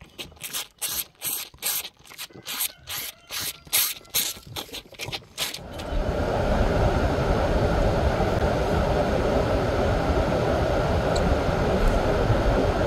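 A calf sucking and slurping on a finger, short wet sucks about three or four a second. About six seconds in this gives way to the steady road and engine noise of a car driving, heard from inside the cabin.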